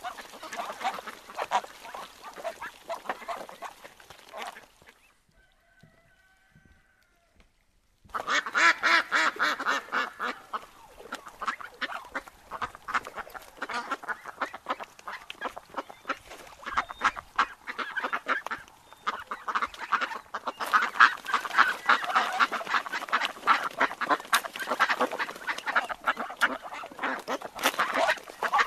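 A flock of wild ducks quacking and calling over one another in rapid, continuous chatter. It drops to near silence for about three seconds partway through, then comes back louder.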